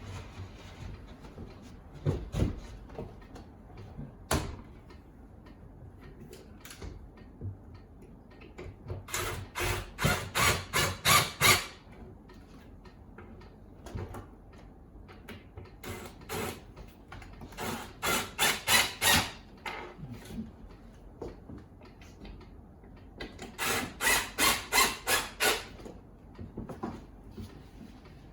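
A tool working wood in three short runs of quick, evenly spaced rasping strokes, about four a second, with a few single knocks before the first run.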